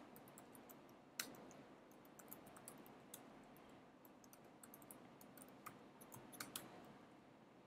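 Faint, irregular keystrokes on a computer keyboard, typing text, with a few sharper clicks, the loudest right at the start and about a second in.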